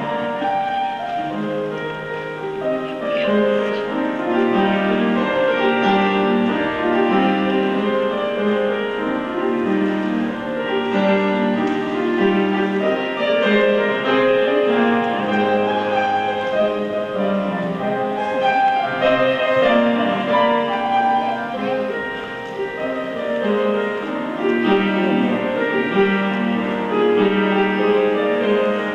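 Scottish dance music played on piano and fiddle: a continuous melodic tune for a step dance.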